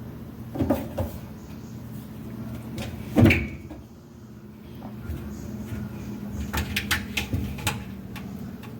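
Several sharp knocks and clatters, the loudest about three seconds in and a quick run of them near the end, over a steady low hum.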